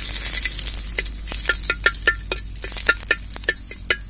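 Dried red chillies sizzling in hot oil in an iron kadai. About a second in, a metal slotted spoon starts stirring them, clinking rapidly against the pan.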